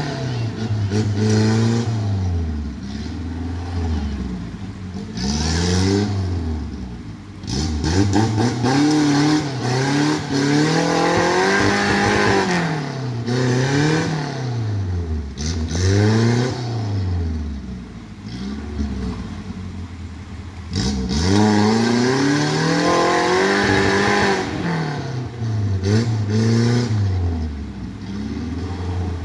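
Suzuki off-road 4x4's engine revving hard and dropping back, over and over, every second or two, as it claws up a steep muddy rutted slope.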